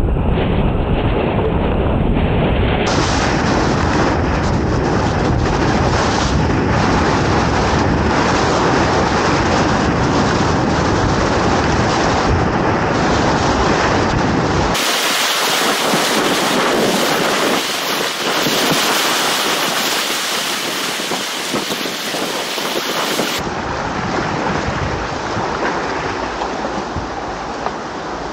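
Steady loud rush of big-water river rapids, heard from inside the whitewater. The low rumble drops away for several seconds about halfway through, and the roar eases slightly near the end.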